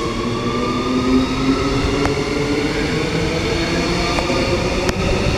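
Queensland Rail SMU electric multiple unit pulling out of the station: a steady rumble with a motor whine that rises slowly in pitch as it gathers speed, and a few faint clicks.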